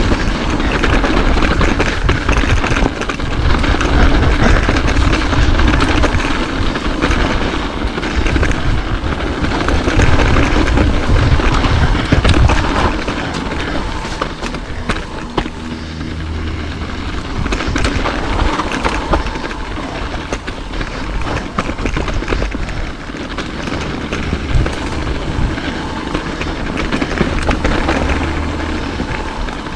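Mountain bike riding down a dirt trail: wind rumbling on the microphone, tyres on dirt and the bike rattling and knocking over bumps. It is louder over the first half and eases off after about 13 seconds.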